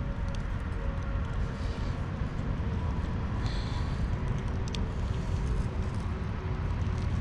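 Steady low outdoor rumble, with a few faint clicks and rustles as a lure's hooks are worked out of a small northern pike's mouth.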